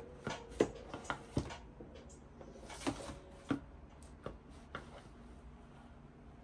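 Scattered light clicks and knocks of small objects being handled, about eight in the first five seconds, then fainter.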